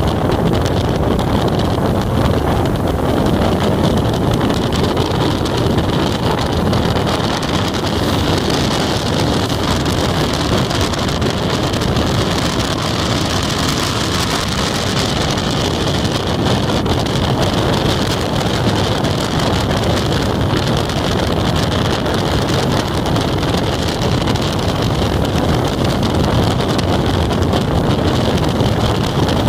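Steady wind noise rushing over the microphone of a moving motorcycle, mixed with the steady drone of its engine at cruising speed.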